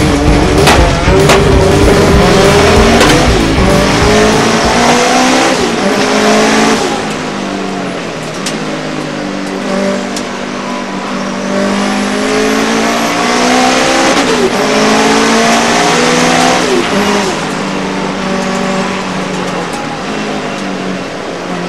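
Racing car's engine heard from inside the car, revving hard and climbing through the gears with a break at each upshift. It drops in revs as the car slows for corners, then pulls up through the gears again.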